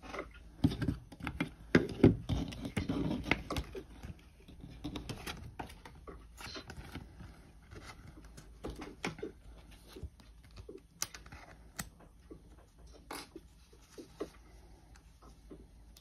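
Small taps, knocks and scrapes of pencil and paper being handled on a desk while a sentence is written, busiest and loudest in the first three or four seconds, then sparse light ticks.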